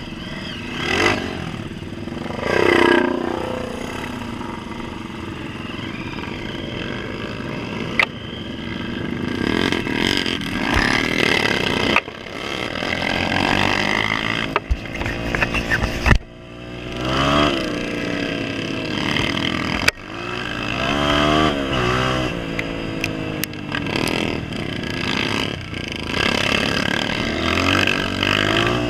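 Honda CRF230F dirt bike's single-cylinder four-stroke engine revving up and down repeatedly as it rides a rough dirt trail. A few sharp knocks are heard along the way.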